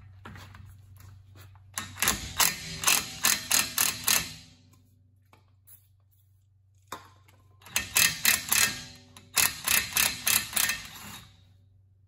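Cordless impact gun hammering in short pulses on the rusted rotor retention Torx screw of a front hub, breaking it loose. It comes in two spells of a few seconds each, with a pause between them.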